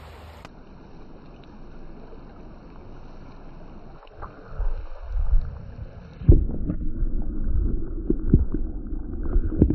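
Creek water running, a steady rushing hiss. About six seconds in, a louder muffled low rumble with scattered knocks and thumps takes over.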